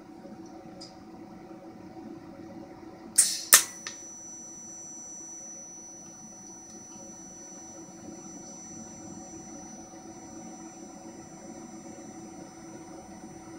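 TIG welder's arc striking with two sharp crackles about three seconds in, then the DC arc burning steadily with a thin high whine over a low hum while fusion welding stainless steel without filler.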